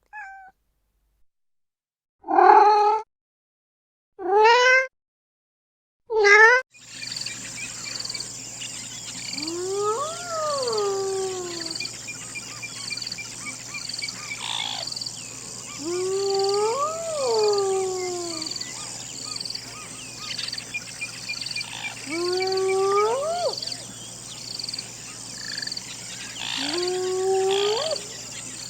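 Three short house cat meows about two seconds apart. Then a steady, pulsing chorus of crickets starts, with four long hyena whoops over it, each rising and then falling in pitch, about six seconds apart.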